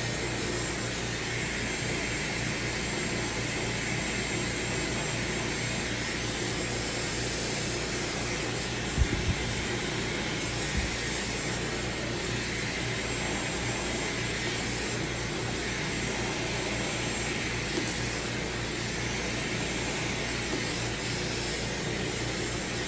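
Dyson hair dryer blowing steadily, with two brief knocks about nine and eleven seconds in.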